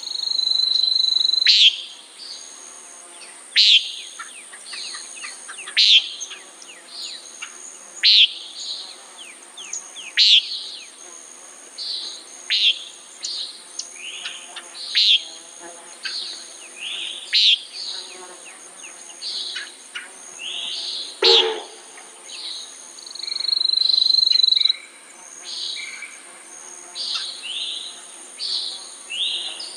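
Common nighthawk calling its short, nasal 'peent' again and again, roughly once every two seconds. Softer bird calls fill the gaps, and a steady high whine sounds twice, at the start and about two-thirds through.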